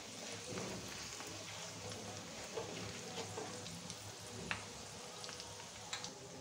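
Ghee and groundnut oil sizzling in a kadai around curry leaves, green chilli, ginger, cashews, cumin and pepper: the tempering for venpongal. It makes a low, even sizzle with scattered small pops, stirred with a spatula.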